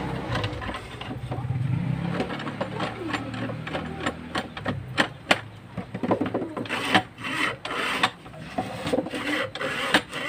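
Plywood parts of a homemade table-saw frame knocking and rubbing as they are handled and fitted together by hand, with irregular sharp taps, several louder ones in the second half.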